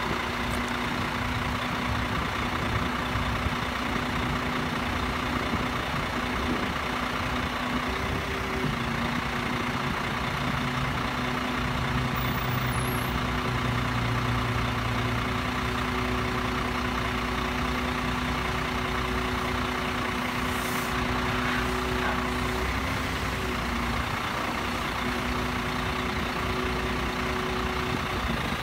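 Diesel engine of a 2003 International 7600 rollback truck running steadily with its hydraulic pump engaged, a steady whine as the tilted bed is lowered back to flat. The whine stops near the end.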